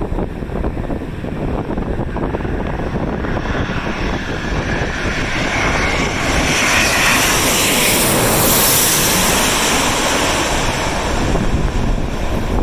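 Airliner on landing approach passing low overhead, its engine noise swelling to a peak about eight seconds in and easing a little after, with gusty wind buffeting the microphone.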